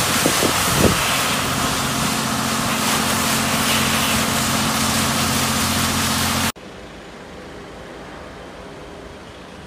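High-pressure water jets of a touchless car-wash machine spraying a van: a loud, steady hiss over the machine's steady hum, with a few short knocks about a second in. The spray cuts off abruptly about two-thirds of the way through, leaving a much quieter low background.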